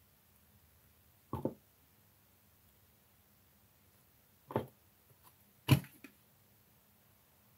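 Light knocks of small objects being handled on a workbench while plastic model parts are glued: one short knock about a second and a half in, then two more a second apart near the end, the last the loudest and followed by a small tap. This is the model's plastic body and a glue bottle being picked up and set down.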